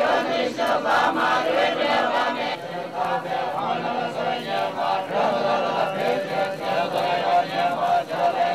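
A crowd of Tibetans chanting together in many voices, with a long held note in the second half.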